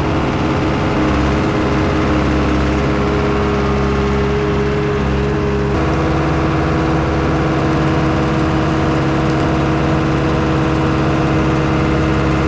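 An engine running steadily at a constant speed, its note shifting slightly about halfway through.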